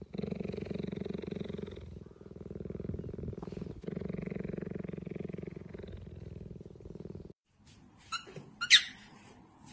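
Cheetah purring: a continuous low rumbling purr with brief breaks about two and four seconds in, stopping suddenly about seven seconds in. A couple of short sharp sounds from a cockatiel follow near the end.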